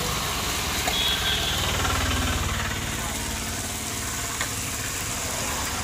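Rice-flour and jaggery batter deep-frying in hot oil in an iron kadai, with a continuous bubbling sizzle. Under it runs a steady low engine-like rumble.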